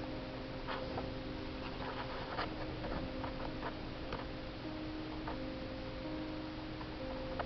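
Soft background music with long held notes, over light irregular ticks and scratches of a needle and floss being pulled through cross-stitch fabric.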